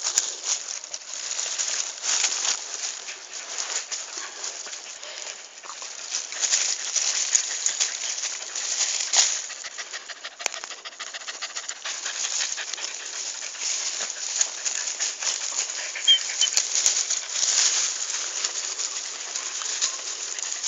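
Soil and dry leaves being scraped and dug away by hand to unearth a white truffle: a dense, irregular run of scratching and crunching.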